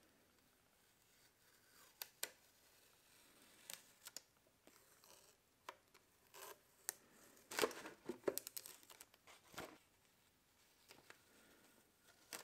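Blue painter's masking tape being peeled off a painted plastic dome: scattered short ripping and crinkling sounds, busiest about two-thirds of the way through.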